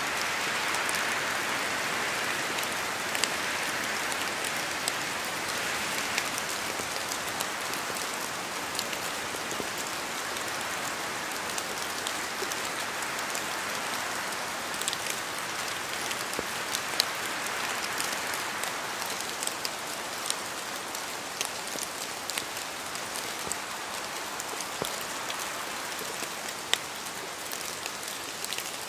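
Steady rain falling, a continuous hiss with scattered sharper ticks of individual drops striking a surface.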